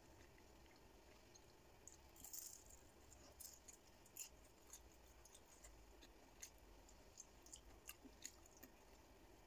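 Faint chewing of a fried spring roll, with scattered small mouth clicks and a brief louder crunchy patch about two seconds in.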